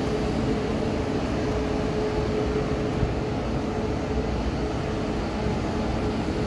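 Locomotive running as it rolls slowly into the station, a steady low rumble with a held mid-pitched hum.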